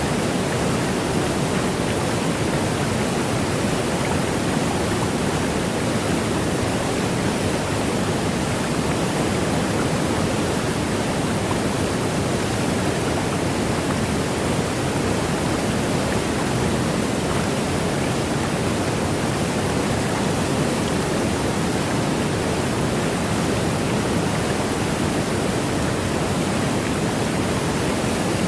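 Waterfall: the steady rush of falling water, an even noise with no breaks.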